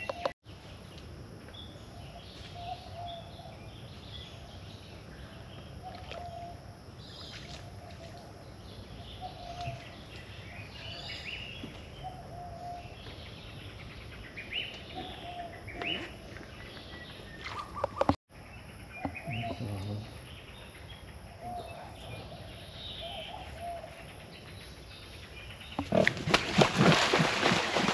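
Wild birds chirping and calling, scattered short notes one after another over a quiet outdoor background. A loud rushing, rustling burst of noise takes over for about the last two seconds.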